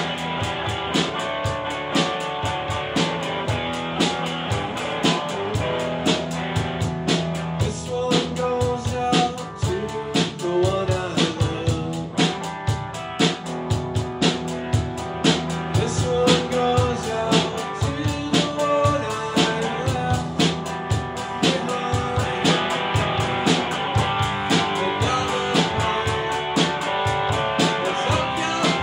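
A band playing: guitars over a drum kit keeping a steady beat.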